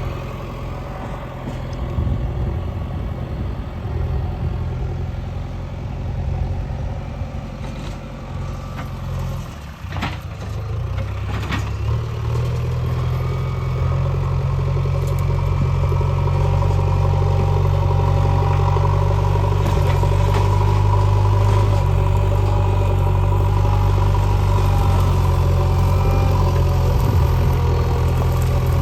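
JCB 3DX backhoe loader's diesel engine running steadily, then working harder and louder from about twelve seconds in. A couple of sharp knocks come just before that.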